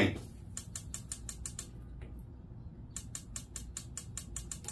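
Spark igniter in a homemade turbojet's combustor snapping in a rapid, even train of about seven clicks a second, with a pause of about a second between two runs. The combustor is being fired with fuel on but does not catch, which is taken for too little fuel.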